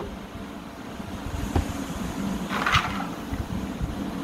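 Steady low mechanical hum, with a couple of soft thumps and a short hiss about two and a half seconds in.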